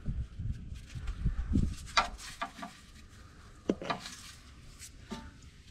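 Scattered light metallic clinks and knocks of tools and parts being handled, over a low rumble in the first couple of seconds.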